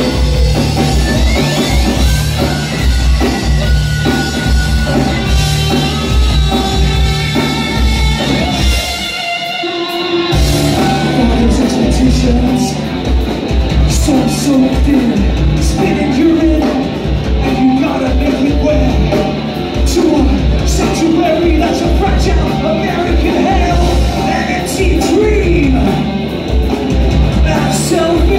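Live rock band playing loud with electric guitar, bass and drums, with singing over it. The bass and drums drop out for about a second near the middle, then the full band comes back in.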